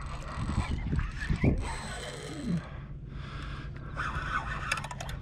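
Wind rumbling steadily on the microphone, with scattered handling noise and a quick run of clicks near the end.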